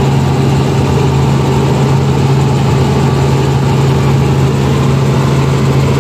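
Helicopter in flight heard from inside the cabin: a loud, steady drone of engine and rotor with a constant low hum.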